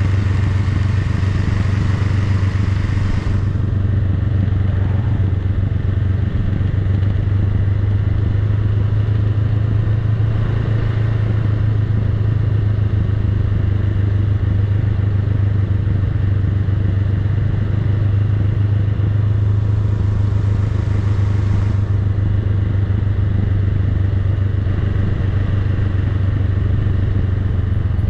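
Honda Rebel 500's parallel-twin engine running steadily as the motorcycle rolls slowly downhill, a constant low drone with no revving.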